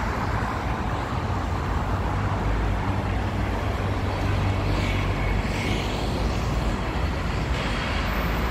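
Steady traffic noise from cars on a busy multi-lane city road, with a deep hum underneath and a faint brief high tone about five seconds in.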